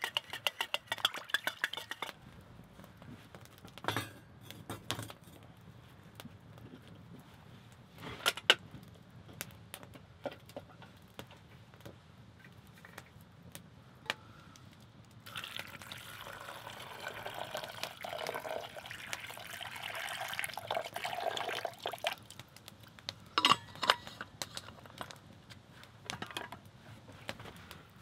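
Metal cookware being handled: a spoon stirring quickly in a steel mug with dense small clinks at first, then a few separate clinks of metal pots. Later comes a steady stretch of liquid sound lasting several seconds.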